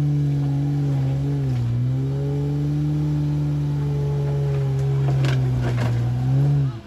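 Honda Ridgeline's V6 engine held at high, steady revs as it tries to climb a rock obstacle, dipping briefly about a second and a half in, with a few knocks near the end; then the revs drop away quickly as the throttle is let off.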